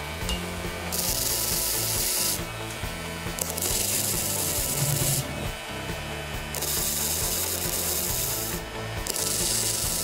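Wire-feed welding arc crackling and hissing as steel block-off plugs are welded into the exhaust crossover passages of cast-iron Oldsmobile cylinder heads. It comes in four short runs of one and a half to two seconds each, with brief pauses between, the last still going at the end.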